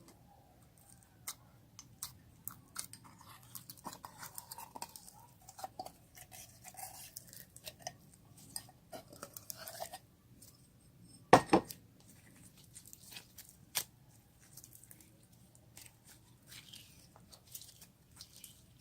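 Hands squishing and kneading slime, making irregular small clicks, pops and crackles, with a sharp double knock about midway.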